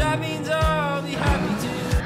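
Background music with a steady beat under a gliding melody line.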